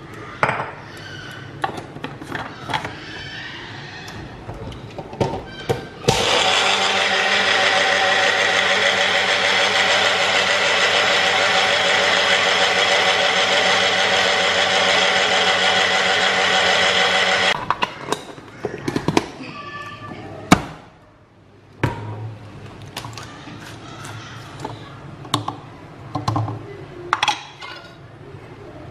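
Electric mixer-grinder with a small plastic blender jar running steadily for about eleven seconds, from about six seconds in, blending milk into a milkshake. Before and after, clicks and knocks from the plastic jar being fitted onto the base and lifted off.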